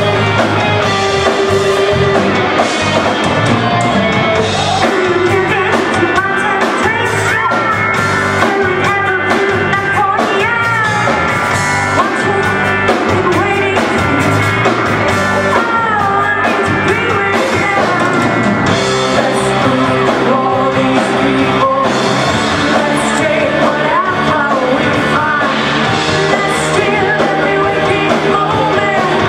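Live rock band playing, with electric guitars and drums under a woman singing.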